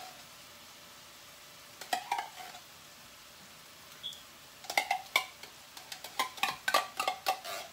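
A spoon clinking and scraping against the inside of an opened tin can as condensed cream of mushroom soup is scooped out. There are a few clinks about two seconds in, then a quick run of about a dozen metallic clinks with a short ring from about five seconds on.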